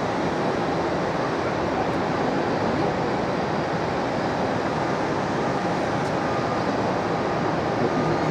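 Airbus A340-300's four CFM56 turbofan engines running at low thrust as the jet taxis onto the runway: a steady, even jet noise with a faint whine.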